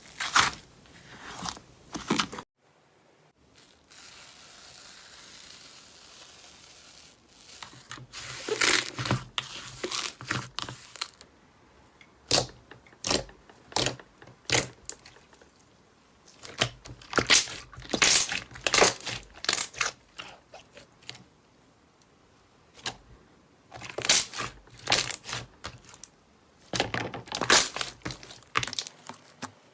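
Slime being pressed and squeezed by hand, giving clusters of crisp crackling and popping with short pauses between them. A quieter stretch of faint hiss comes about three to eight seconds in.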